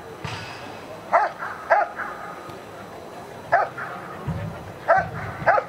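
German Shepherd Dog barking at a trial helper who stands still with a protection sleeve, guarding him in the hold-and-bark: five loud, short barks at uneven intervals.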